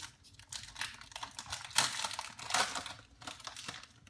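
Foil booster-pack wrapper crinkling in the hands, then Pokémon trading cards being pulled out and flicked through. It makes an irregular run of crisp clicks and rustles, loudest about two seconds in.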